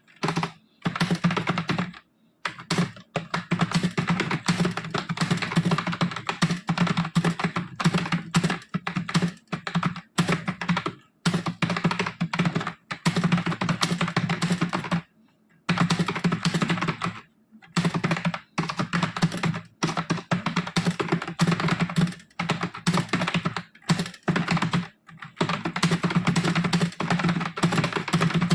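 Fast touch-typing on a computer keyboard: a dense, rapid run of keystrokes, broken a few times by brief pauses of about a second.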